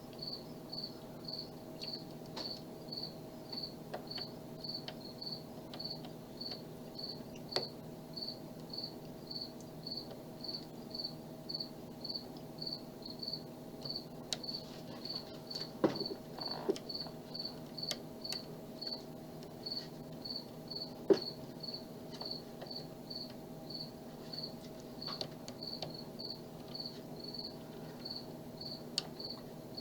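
A cricket chirping steadily, about two high chirps a second, over a low steady hum. Faint scattered clicks of a lock pick and tension bar working a padlock's pins, with a few sharper clicks around the middle.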